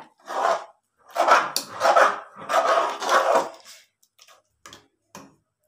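A steel ladle stirring thick batter in an aluminium pressure cooker. There are three wet, scraping sweeps through the batter, then a few light taps of the ladle against the pot near the end. The batter has thickened on the heat and is starting to stick to the pot.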